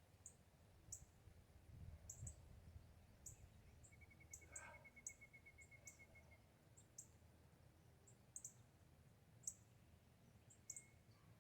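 Faint wild-bird ambience: short high chirps repeating every second or so, and about four seconds in a quick, even trill lasting a couple of seconds, over a faint low rumble.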